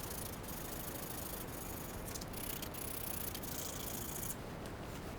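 Abrasive paper rubbed by hand over a small steel toolbox latch: a steady scratchy hiss of fine-grit (400) sanding strokes with brief breaks where the stroke turns, easing off about four seconds in.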